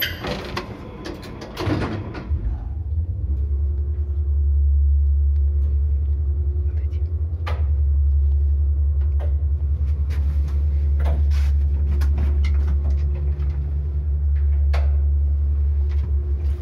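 KMZ passenger elevator: a button press and the sliding doors closing in the first two seconds, then the car travelling with a steady low rumble and occasional clicks and knocks from the shaft.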